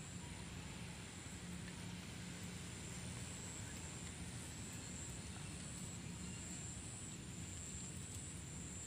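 Faint, steady background hum and hiss, with a thin high steady tone above it and no distinct events.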